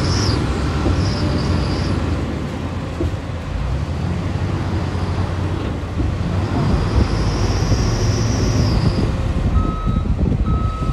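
Heavy earthmoving machinery running under load, a deep diesel rumble with a high squeal twice, and a reversing alarm beeping about once a second near the end.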